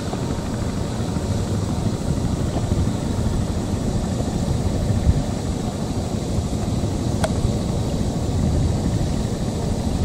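Steady, gusty low rumble of wind buffeting the microphone.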